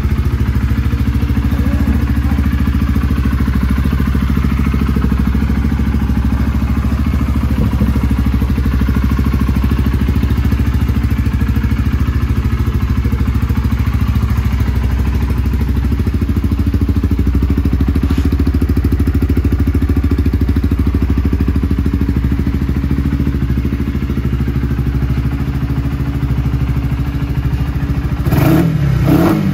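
Honda CBR125R's single-cylinder four-stroke engine idling steadily through a full Scorpion aftermarket exhaust. Near the end the throttle is blipped twice, the revs rising and falling quickly.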